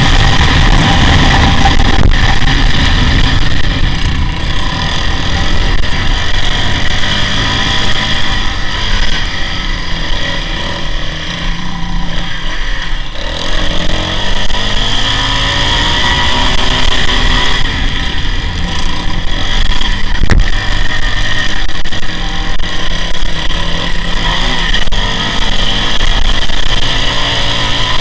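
Sport quad's engine running hard through a helmet camera's microphone. The revs drop briefly about halfway through, then climb again.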